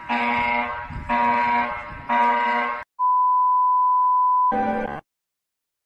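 Synthesized emergency alert alarm tones: a harsh repeating tone sounds three times about a second apart, then a steady high beep holds for about a second and a half, then a short harsh blast, and the sound cuts off.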